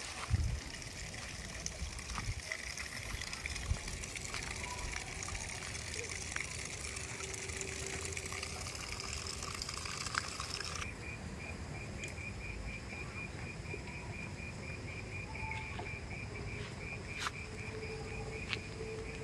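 Insects chirping over a steady outdoor background noise. About halfway through, the high hiss thins abruptly and a rapid, even pulsing chirp stands out.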